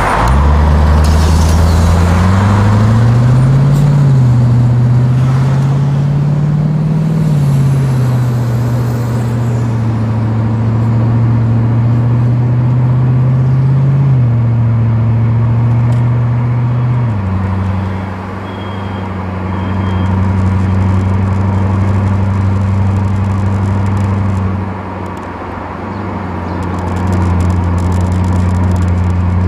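Audi B7 S4's 4.2-litre V8 through a Milltek exhaust with resonator, picked up at the rear of the car, pulling at low revs. The engine note rises in pitch over the first few seconds and holds. About 17 seconds in it drops with an automatic upshift, then eases briefly twice as the throttle is lifted.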